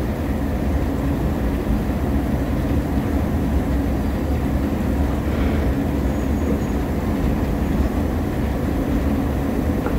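Escalator running, a steady low mechanical rumble and hum from its step chain and drive.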